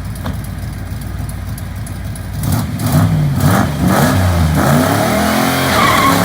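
Ford V8 engine of a burnout car idling, then about two and a half seconds in revved hard several times, the pitch rising and falling with each blip.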